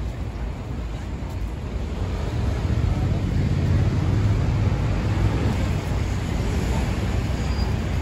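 Busy city street traffic: a steady roar of passing vehicles, with a low rumble that swells a few seconds in.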